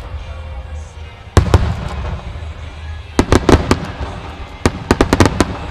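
Starmine aerial firework shells bursting in sharp, rapid bangs over a continuous low rumble. There are two bangs about a second and a half in, then a quick volley of many bangs through the second half.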